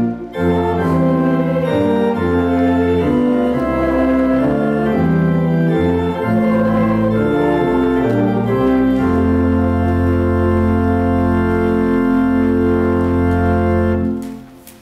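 Church organ playing a hymn in sustained chords, closing on a long held final chord that stops shortly before the end.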